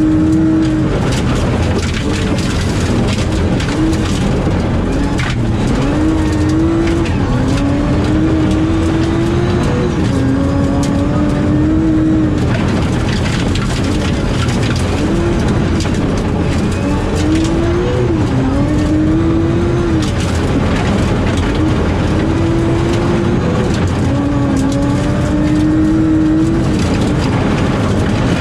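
BMW E36 rally car engine, heard from inside the cabin, revving up and dropping back at each gear change as the car accelerates along a gravel stage. Loose gravel rattles against the underside throughout.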